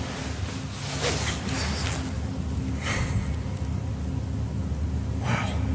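A steady low hum, with three short hissy noises about one, three and five seconds in.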